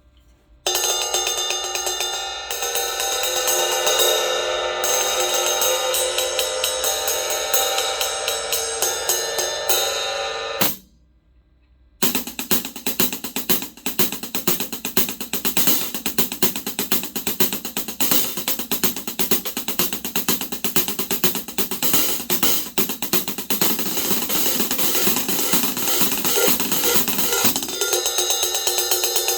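Zildjian K Sweet 14-inch hi-hat played in quick, continuous strokes. The playing pauses briefly about eleven seconds in, then resumes.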